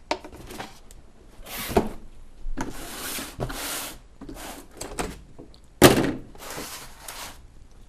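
Cardboard box and packaging being handled and rummaged through: rustling and scraping broken by two sharp knocks, the louder one about six seconds in.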